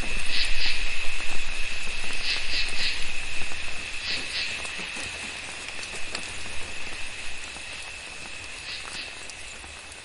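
Rainforest insects and frogs calling after a tropical storm: a steady high insect drone with short, repeated paired chirps over it, all fading out toward the end.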